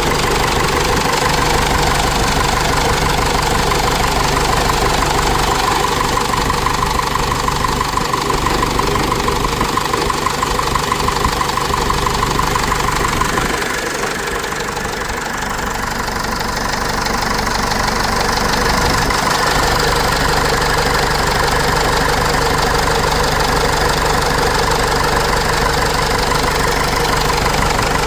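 Cummins 4BT four-cylinder diesel in a Case 586E forklift running steadily. It dips a little in loudness about halfway through, then comes back up.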